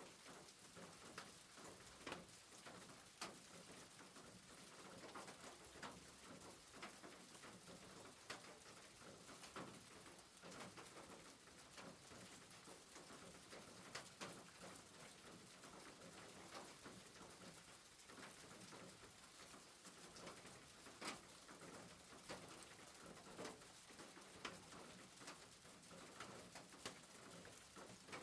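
Faint, steady rain on a rooftop, with scattered individual drops tapping at irregular moments.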